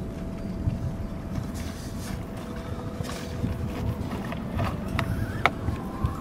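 Uneven low rumbling noise, like wind buffeting the microphone, with a faint steady hum over it and two sharp clicks about five seconds in.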